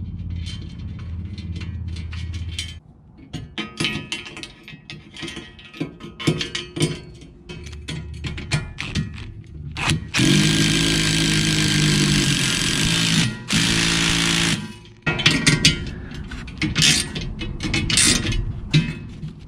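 DeWalt 20-volt impact driver with a right-angle adapter hammering a bolt tight, in two bursts of about three seconds and one and a half seconds. Clinks and clanks of steel strut, all-thread and nuts being handled come before and after.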